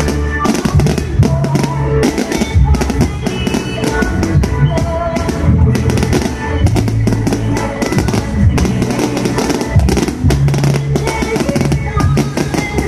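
Loud music with a strong drum and bass beat, mixed with dense fireworks crackling and banging.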